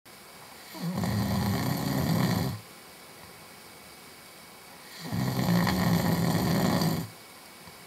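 A man snoring: two loud snores of about two seconds each, one starting just under a second in and the next about four seconds later, each a low buzzing rattle.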